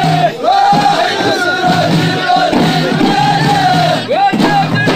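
Ahidous: a chorus of men chanting together in a wavering, drawn-out melody, accompanied by hand-struck bendir frame drums.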